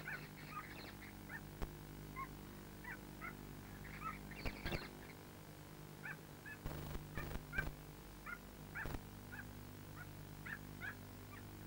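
Rainforest animal calls: many short, high chirps scattered throughout, over a steady low hum. A few sharp knocks come around the middle.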